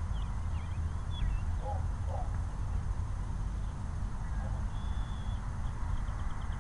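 Steady low rumble of wind buffeting the microphone, with faint bird chirps and a short whistle above it; a faint run of quick ticks comes near the end.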